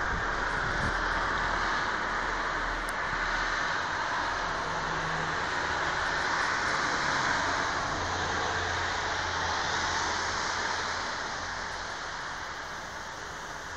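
Steady rushing noise of strong wind, with a low engine hum of passing traffic in the middle. The sound eases off near the end.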